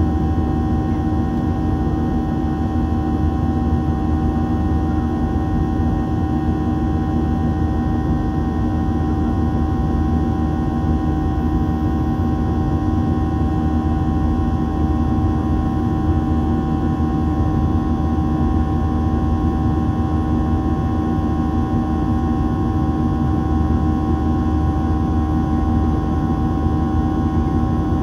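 Boeing 737-700 cabin noise: its CFM56-7B jet engines and airflow give a loud, steady drone with a low rumble and several held whining tones, unchanging throughout.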